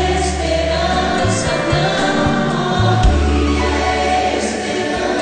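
Gospel song sung by a choir over long, held bass notes.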